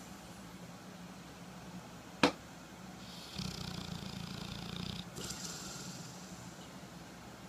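A single sharp click about two seconds in, then one snore lasting nearly two seconds from a sleeper breathing slowly.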